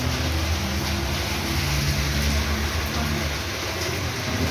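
Steady rain falling, with a car driving along the wet street. The engine hum fades out after about three seconds.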